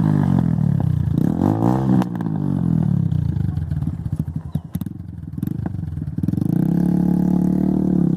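TVS Apache RTR 160's single-cylinder engine through an unbranded aftermarket exhaust, doing a flyby: revved up twice, then dropping to a pulsing note that fades away about halfway through, and climbing again loud and steady near the end as the bike comes back.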